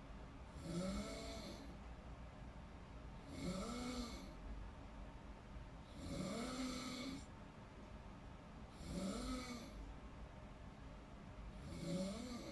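A person snoring in deep sleep: five snores at an even pace, about one every two to three seconds. Each is a short rasp whose pitch rises and then falls.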